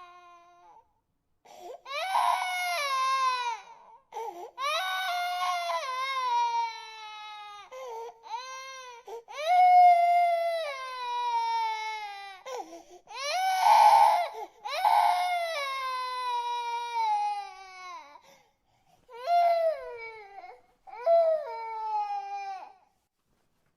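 A baby crying: about eight high cries, each one to three seconds long, most sliding down in pitch at the end, with short gaps for breath between them.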